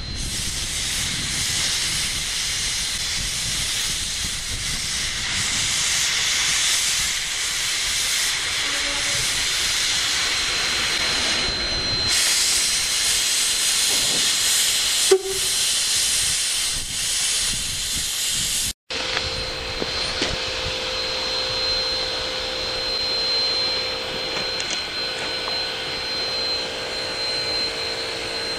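Rio Grande Southern No. 20, a 4-6-0 steam locomotive, hissing steam loudly and steadily; the hiss grows brighter about twelve seconds in, with a single sharp clank a few seconds later. After a sudden break about two-thirds through, the hiss goes on quieter, with a steady high thin tone over it.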